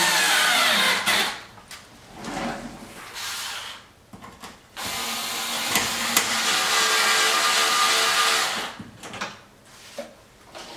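Cordless drill running in bursts, driving the screws that fasten a front splitter to the car's underside. It gives a run of about a second at the start, a quieter run around two to three seconds in, and a longer steady run with a held whine from about five to eight and a half seconds in.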